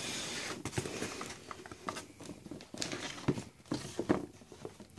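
Sneakers being handled and turned on a cardboard shoebox: rustling and scraping with a series of light knocks, the sharpest about three and four seconds in.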